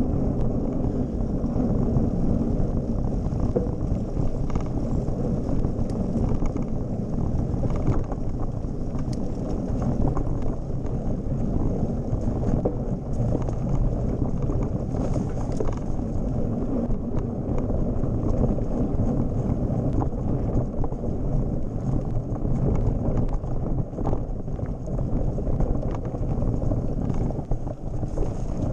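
Wind rumbling on an action camera's microphone while a mountain bike rolls over a dirt and gravel track, with the tyres' rumble and small rattles and knocks from the bike.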